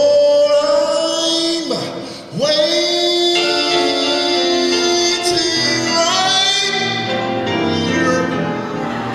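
Gospel singing: a lead voice holds long notes that slide and waver in pitch, with other voices sounding behind it. The singing breaks off briefly about two seconds in, then resumes on a lower held note.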